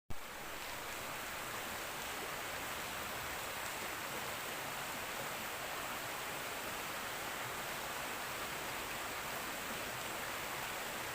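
River water flowing steadily over a shallow bed, an even rushing hiss.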